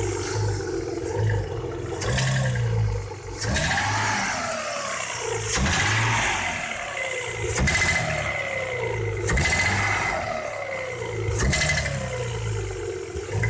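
Audi 3.0 V6 (BBJ) engine blipped repeatedly, its revs rising and falling about every two seconds, with a sharp ringing knock on each stab of throttle. The knock comes from cylinder one and is caused by the exhaust manifold's internal baffles having broken off and come loose.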